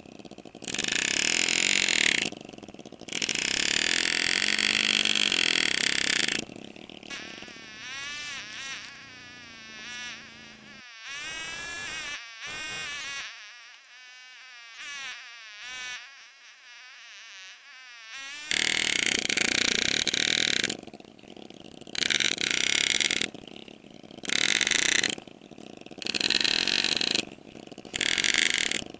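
Engraving graver buzzing in on-off bursts as it cuts scrollwork into a sterling silver ring. Long bursts of a few seconds alternate with shorter ones of about a second through the middle.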